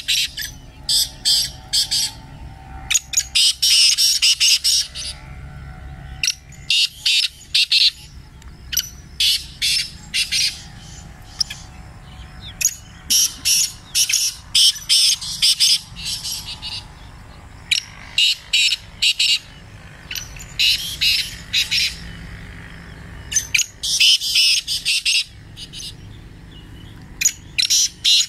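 Caged francolins (teetar) calling in a competition: repeated phrases of rapid, sharp, high-pitched notes, a new phrase every two to three seconds with short pauses between.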